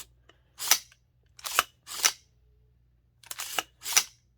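AR-15 charging handle, an Aero Precision Breach on a SIG M400 with a WMD bolt carrier group, being pulled back and let go so the bolt carrier slides back and forward in the upper receiver: about five short metallic racking strokes in two or three cycles, described as smooth.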